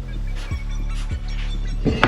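Background music with a deep bass line whose notes slide down in pitch about twice a second.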